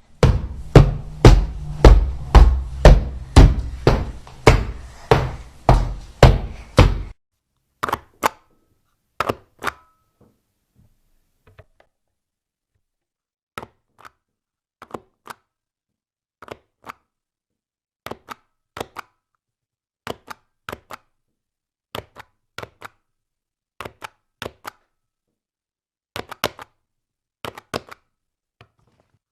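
Rubber stamp struck down again and again. First comes a fast run of about fifteen heavy hits, roughly two or three a second, with a deep boom under them, which cuts off suddenly after about seven seconds. After that come lighter, drier stamp hits, mostly in pairs, every second or two.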